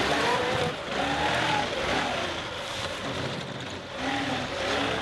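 John Deere 2038R compact tractor's three-cylinder diesel running under load as the front loader works dirt, with a whine that rises and falls several times.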